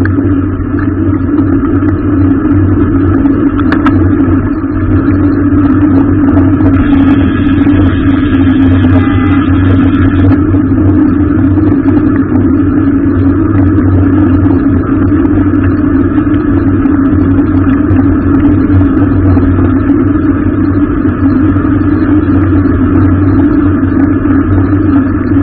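Car driving, with steady engine and road noise. A faint higher tone comes in for a few seconds near the middle.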